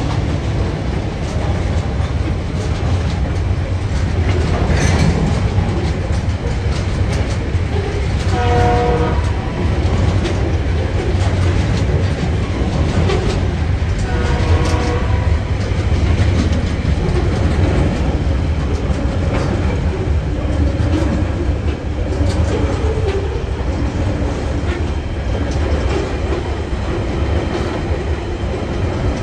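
Freight train container wagons rolling past: a steady, loud rumble of wheels on rail with scattered clanks. Two brief high-pitched squeals come about eight seconds in and again about six seconds later.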